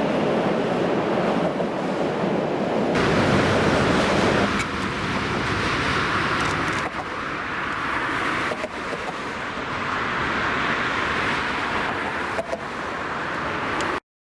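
Electric freight trains passing on the rail line with a steady rumble and rush of rail noise: first an ET22 locomotive hauling coal wagons, then, after a change about four seconds in, a Newag Dragon six-axle electric locomotive. There are a few sharp wheel clicks, and the sound cuts off suddenly near the end.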